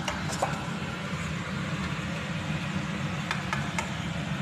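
A steady low hum of kitchen machinery running throughout, with a few light clicks and scrapes of a silicone spatula against a non-stick frying pan as a thick white sauce is stirred, a small cluster of them a little after three seconds in.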